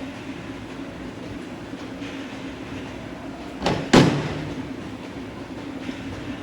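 Soap-factory machinery running with a steady hum, broken a little under four seconds in by two loud knocks close together, the second the loudest with a short fading tail.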